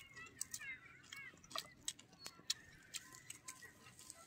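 Quiet eating sounds: scattered soft clicks and crunches as raw cabbage salad is picked by hand from a metal plate and chewed.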